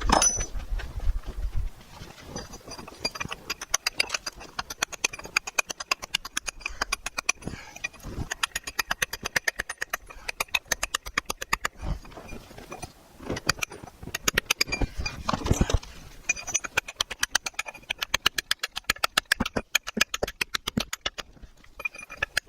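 Quick, even clicking from tool work, about five clicks a second, in two long runs with a few louder knocks between.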